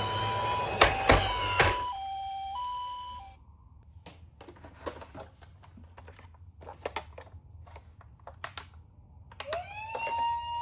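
Toy ambulance minicar's electronic two-tone siren alternating between a low and a high note, over a rattling noise with two sharp knocks; the rattle stops about two seconds in and the siren about three seconds in. A run of light plastic clicks and taps follows, and near the end the siren starts again with a tone that rises and then holds steady.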